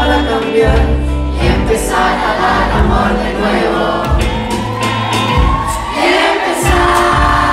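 Live band performing a song: women singing into microphones over electric guitar, keyboard, drum kit and congas, with audience voices mixed in.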